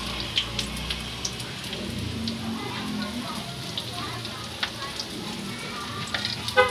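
Spring rolls deep-frying in hot oil in a wok: a steady sizzle with scattered crackles and pops. A short horn-like toot sounds right at the end.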